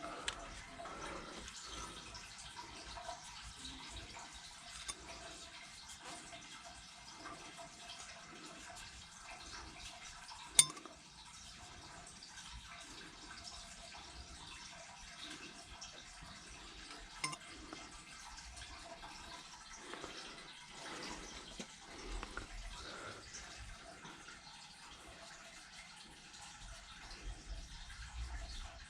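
Water running and dripping, a steady trickle with soft repeating pulses, in a small room. One sharp knock about ten seconds in is the loudest sound, with a smaller click later.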